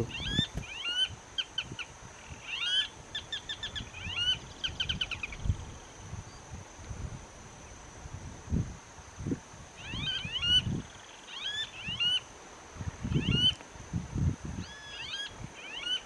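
Blackish rail (saracura-sanã) calling: runs of sharp, high, quickly repeated notes in the first five seconds, then another bout from about ten seconds in. A few dull low thumps fall between the calls.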